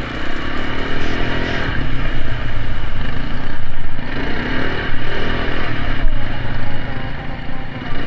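Motorcycle engine running while riding, under a steady rushing noise.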